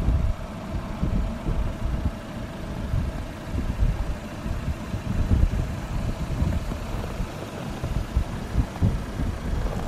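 Wind buffeting the microphone: an irregular low rumble that comes in gusts, over a faint steady hum.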